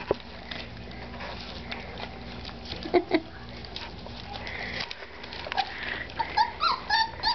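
Old English Sheepdog puppies eating dry kibble from a metal pan: scattered small crunches and clicks of kibble. Near the end come short, high, repeated puppy whimpers.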